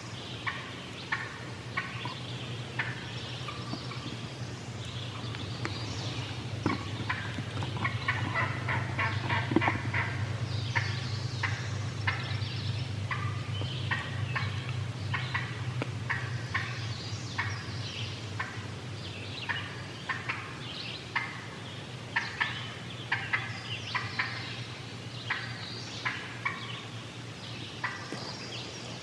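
Wild turkey hen calling excitedly in long, fast runs of short, sharp notes, cranking away with the intensity the hunter calls going berserk.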